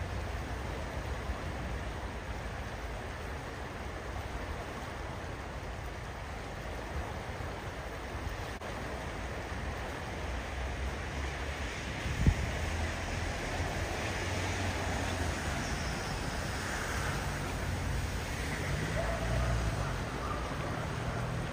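Fast-flowing floodwater rushing in a swollen channel, a steady noisy wash of water. A single sharp knock about halfway through.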